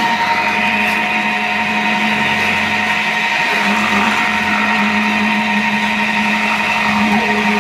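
Steady machine drone of a concrete slab pour: the poker vibrator's motor and the concrete pump running together, a constant hum with a higher whine over it.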